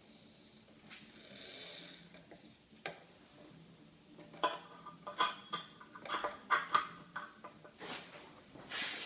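Light metallic clinks and rattles of steel tools being handled, clustered around the middle, then a short hiss near the end; no drill motor running.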